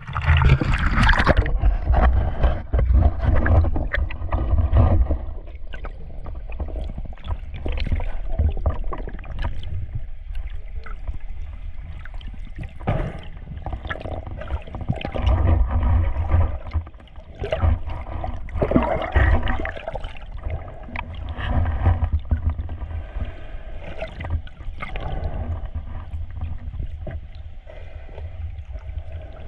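Water splashing as divers duck under from the surface about a second in, then muffled underwater gurgling and rumble with scattered knocks and clicks as the divers descend along the buoy line.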